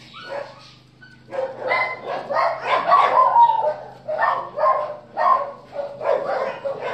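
Dogs barking in a quick series of short barks, about two a second, starting about a second in, over a faint steady low hum.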